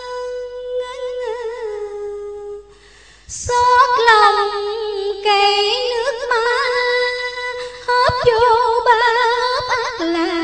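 A woman's voice chanting Hòa Hảo Buddhist religious verse in the drawn-out Vietnamese ngâm style: long held, wavering notes with no clear words. The chant breaks off briefly about three seconds in, then goes on, dropping lower near the end.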